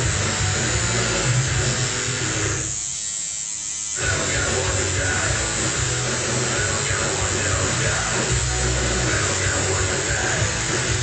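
Electric tattoo machine buzzing steadily over background music. Both drop out briefly about three seconds in.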